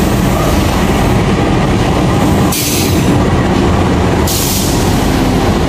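Diesel locomotive of a passenger train pulling into the platform and passing close by, its engine rumbling and wheels running on the rails. Two short bursts of hiss come about two and a half and four and a half seconds in.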